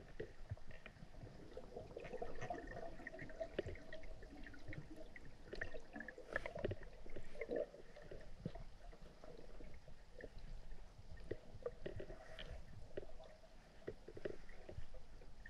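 Muffled underwater sound of a diver moving through still, murky pond water: faint gurgling and sloshing with many scattered small clicks and soft knocks.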